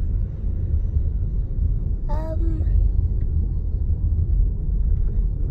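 Steady low rumble of a moving car's road and engine noise heard inside the cabin, with a brief voice about two seconds in.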